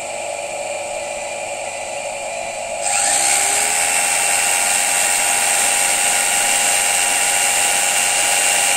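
An induction motor and its generator run with a steady hum. About three seconds in, an electric jigsaw switches on at full speed and runs on with a louder, steady whir.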